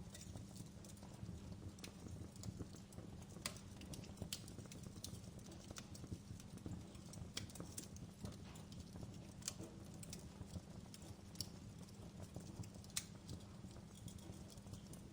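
Wood fire in a fireplace crackling: irregular sharp pops and snaps, a few louder than the rest, over a low steady rumble of the burning.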